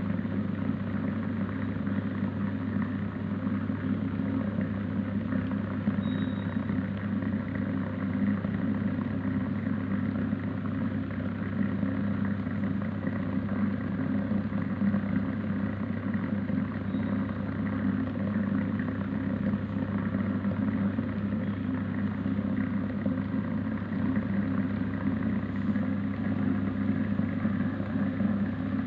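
Electric steam vaporizer machine running, a steady low hum with a noisy hiss over it that does not change.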